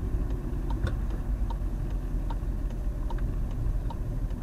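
A car's turn-signal indicator ticking steadily, a little more than once a second, over the engine and tyre rumble heard inside the cabin.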